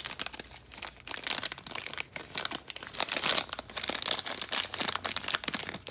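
Foil blind-bag pouch crinkling sharply and irregularly as it is squeezed and torn open by hand.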